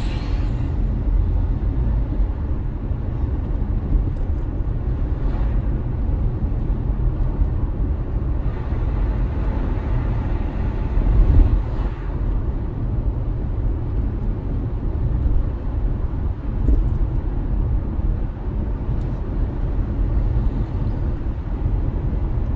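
Steady road and engine rumble of a moving car, heard from inside the cabin, with a brief swell in loudness about eleven seconds in.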